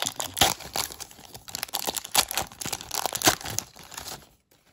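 Plastic baseball-card pack wrapper crinkling as it is torn open and the card stack is pulled out: a dense run of irregular crackles that stops shortly before the end.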